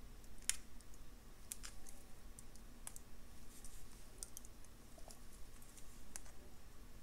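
Faint, scattered clicks and ticks of small jewellery pliers and wire as a wire-wrapped loop is closed with a couple of wraps.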